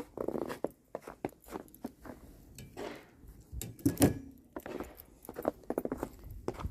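Footsteps crunching through deep fresh snow, irregular, with a louder crunch about four seconds in.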